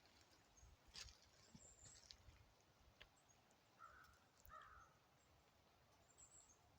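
Faint bird calls: two short, harsh calls a little over halfway through, with a few faint high chirps and some clicks over a quiet outdoor background.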